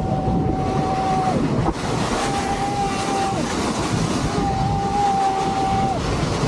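Continuous rushing roar of wind on the microphone and a board scraping down loose volcanic ash at speed. A steady high tone of unclear source sounds three times, each for more than a second, with short gaps between.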